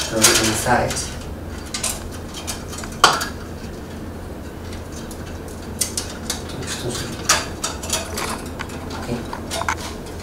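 Light metallic clinks, scrapes and clicks as a band saw blade is handled and fed over the wheels and through the blade guides of a benchtop band saw during a blade change, with one sharp clack about three seconds in.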